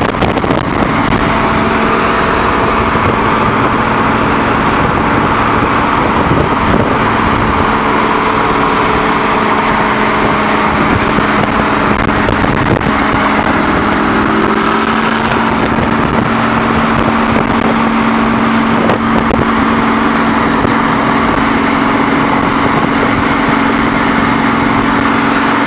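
Lamborghini Gallardo V10 with a straight-piped LNB exhaust droning at a steady freeway cruise, paced from an adjacent car. The pitch holds steady, rising slightly about halfway, over a steady rush of road and wind noise.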